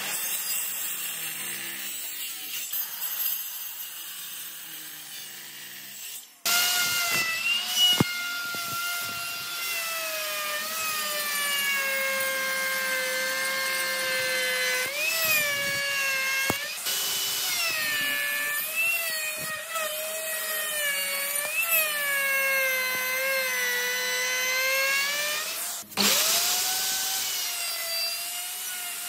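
A handheld circular saw cutting timber for the first six seconds or so. Then an electric plunge router starts and runs with a loud high whine, its pitch dipping and recovering again and again as the bit cuts along the edge of a board. It briefly cuts out and restarts near the end.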